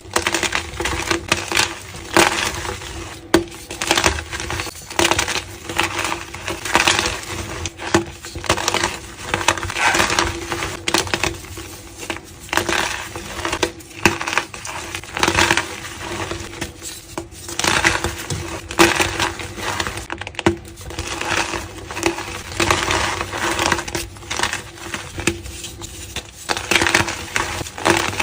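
Reformed gym chalk being crumbled and crushed: a dense, irregular run of crisp crunches and crackles.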